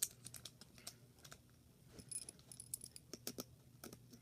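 Small irregular clicks and rattles of a plastic toy sonic screwdriver being handled as its battery compartment is put back together, the sharpest click right at the start.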